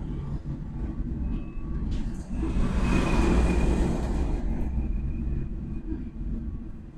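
Cabin noise of a small electric minibus on the move: a steady low rumble from the ride and the road, with a faint steady high whine. About two and a half seconds in, a louder rush of noise swells and fades over roughly two seconds.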